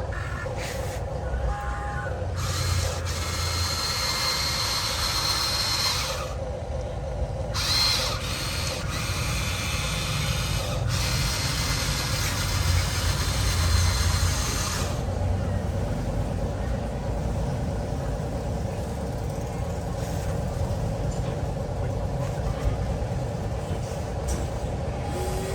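1:14 scale Huina RC construction machine's electric motors whining in bursts of several seconds, over a steady low engine-like drone.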